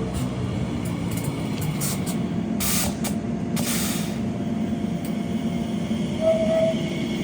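Train running with a steady low rumble, with two short hisses of air about three and four seconds in.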